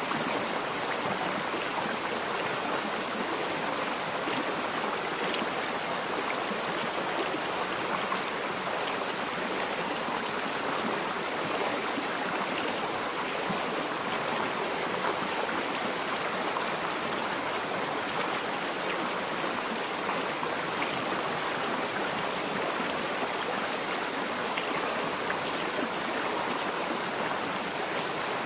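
A forest river flowing and splashing over rocks: a steady, even rush of water with no breaks.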